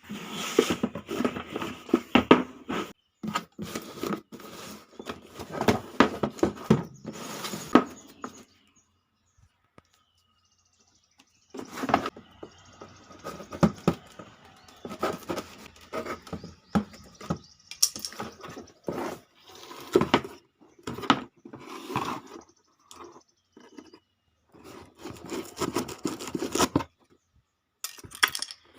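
A keyboard being unboxed and handled: irregular rustling of packaging, with taps, clicks and knocks. It stops for about three seconds roughly a third of the way in, then carries on.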